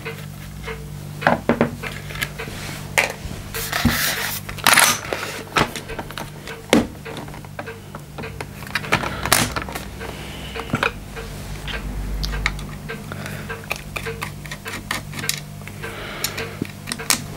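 Hand-tool and handling noise: irregular clicks, taps and knocks as a screwdriver works the stock screws of a lever-action CO2 replica rifle and the rifle is shifted on the bench, over a steady low hum.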